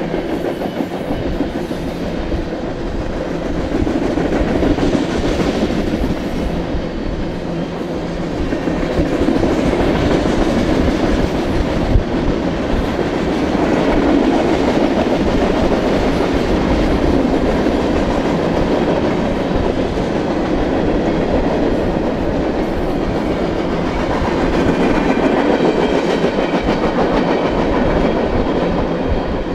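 A BNSF manifest freight train rolling past: a steady, loud noise of steel wheels running on the rails, with no horn.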